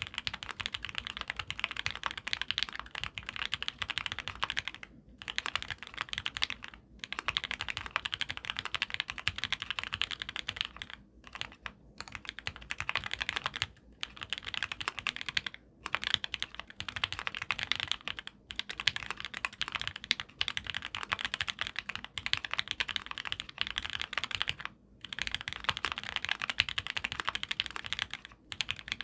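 Fast, continuous typing on an ai03 Vega mechanical keyboard with lubed, filmed Gateron Ink Black V2 linear switches on 70 g springs and GMK ABS keycaps. The keys clatter in steady runs broken by brief pauses. The owner feels the stabilizers still need re-tuning.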